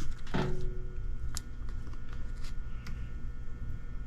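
Scattered light clicks and rustling of hands handling parts, with a short low knock just after the start, over a steady faint hum.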